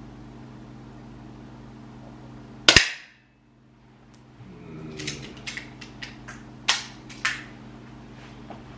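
A single shot from an APS target air pistol, a sharp double crack about a third of the way in, followed a couple of seconds later by a run of sharp clicks and knocks as the pistol is handled.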